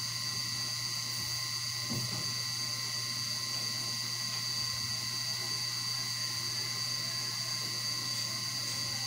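Steady electrical-mechanical hum with a constant high-pitched whine over it, unchanging throughout.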